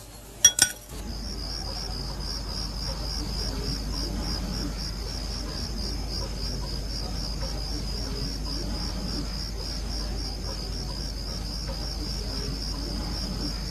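Night insects chirring: a steady, evenly pulsing high chirr over a low hum. Two brief clicks sound about half a second in, just before the chirring starts.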